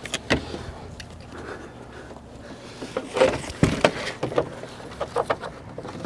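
Scattered clicks, knocks and rattles of a car seatbelt's metal hardware and the plastic B-pillar trim being handled and fitted into place, the loudest knocks a little past halfway.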